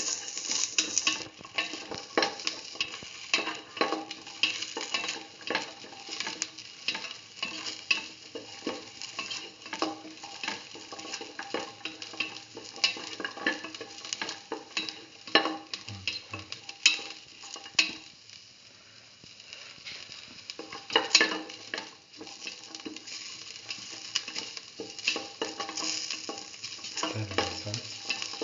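Sliced onions and shallots sizzling in hot oil in a metal pan while being stirred, with frequent sharp clicks and scrapes against the pan. The stirring eases briefly about two-thirds of the way through.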